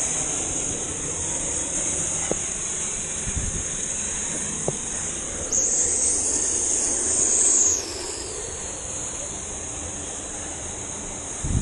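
Insects droning in a steady high-pitched buzz; about five seconds in, one buzz swells louder for two seconds, then winds down, falling in pitch. A steady lower rushing noise runs underneath.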